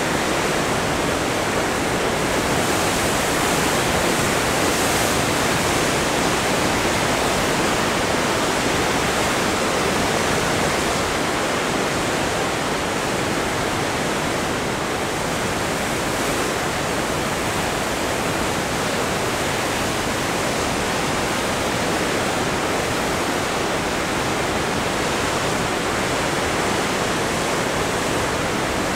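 Heavy Pacific surf breaking over rocks: a steady rush of white water and foam washing around them, with no single crash standing out.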